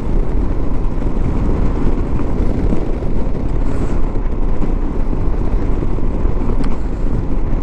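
Moto Guzzi V85TT's air-cooled two-cylinder engine running at steady road speed, mixed with heavy wind rush.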